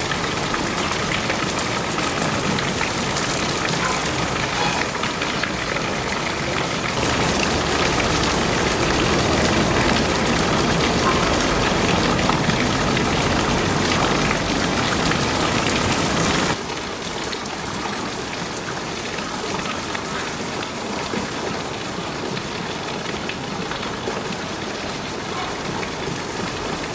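Steady hiss of rain or running water, with the level stepping up sharply about 7 seconds in and dropping sharply about 16 seconds in.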